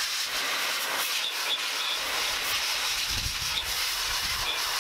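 Metrovac Master Blaster 4 hp car-drying blower running, a steady rush of air from its hose nozzle blowing trapped and standing water off a wet engine bay. A deeper rumble joins about three seconds in.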